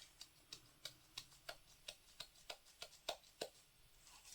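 Faint, light clicks at a regular pace of about three a second, from working more pink powder pigment into a pot of resin.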